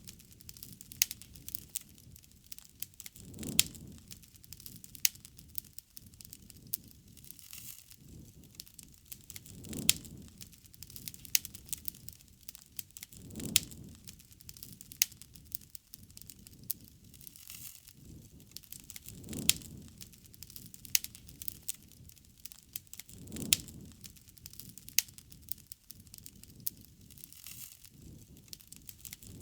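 Wood fire crackling, with many sharp pops and snaps. A low rushing swell comes and goes every three to four seconds.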